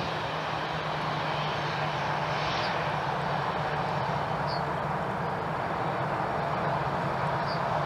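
Jet engines of an Airbus A320-family airliner running steadily as it rolls along the runway: an even rush with a low steady hum beneath it.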